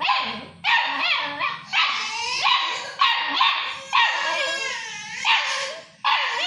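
Young Labrador puppy barking over and over, a string of about ten short, high-pitched barks, one every half second to a second.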